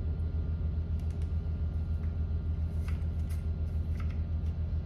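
A steady low hum with an even pulsing beat, over which a few faint clicks sound as small steel trigger pins are handled and lined up in an AR-9 lower receiver.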